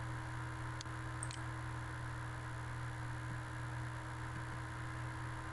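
Steady electrical hum and hiss of the recording setup, with two faint short clicks about a second in.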